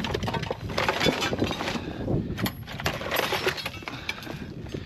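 Pile of scrap being rummaged through and pulled apart: metal and plastic pieces clattering and clinking irregularly, with cables rustling and dragging.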